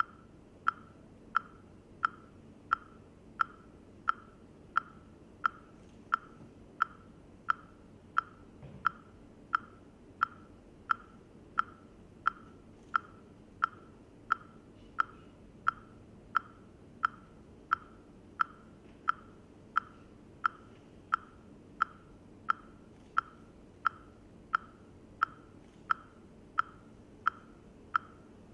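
A steady metronome-like beat of short, sharp ticks, about three every two seconds, over a faint low background hum.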